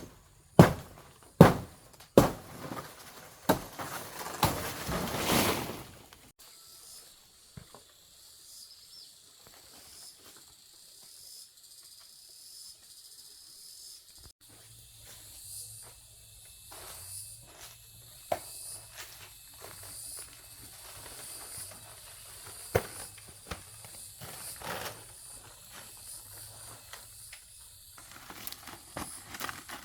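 Several sharp chopping strikes with rustling leaves over the first few seconds, then a long quieter stretch of steady high insect chirring with a few faint knocks and a low hum joining about halfway. More chopping strikes come near the end.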